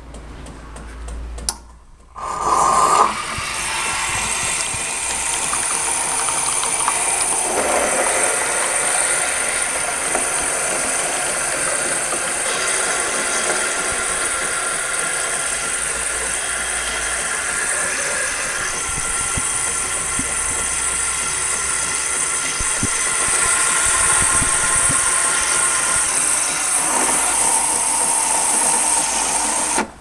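Saeco Royal Cappuccino's steam milk frother running: a steady hiss as it draws milk from a bottle and dispenses foamed milk into a cup. It starts about two seconds in after a brief higher tone and cuts off suddenly at the end.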